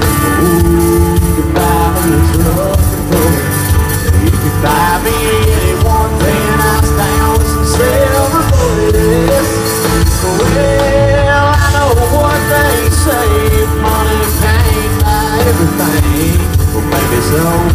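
Live country-rock band playing an instrumental break: electric guitars, bass and drums, with a lead melody sliding between notes.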